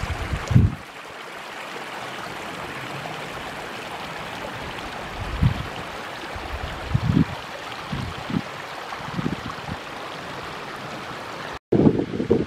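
Small mountain stream running over rocks, a steady rush of water with a few short low thumps in it. Near the end it cuts off abruptly and gives way to wind buffeting the microphone.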